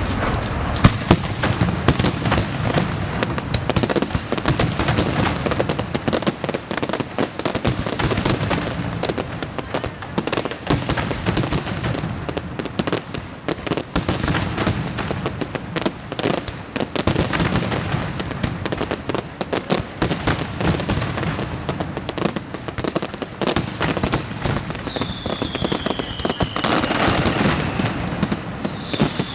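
Fireworks display: a dense, continuous barrage of rapid bangs and crackling, with a falling whistle near the end.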